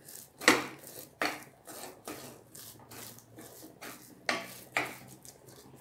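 Wooden spatula scraping and stirring a thick semolina and mashed-potato mixture around a nonstick kadhai, in a series of irregular scraping strokes. The semolina is being cooked on low heat until it soaks up the water and binds into a dough.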